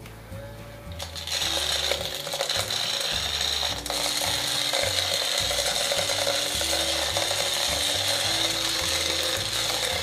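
Toy hand-held vacuum cleaner built from a science kit, its small motor-driven fan starting about a second in and running with a loud, steady whirring hiss and a rattle as it sucks up styrofoam balls. Soft background music underneath.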